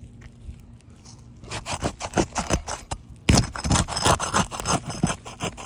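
Asphalt roof shingle being lifted and pulled loose, a quick run of crackling scrapes and snaps starting about a second and a half in, loudest in the second half. The sound of a shingle that is separating from the course below.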